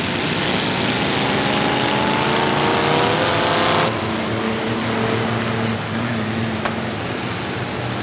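Engines of old pickups and cars racing on a dirt track. One engine revs up with a steadily rising pitch for about four seconds, then the sound changes abruptly to a steadier drone of several engines.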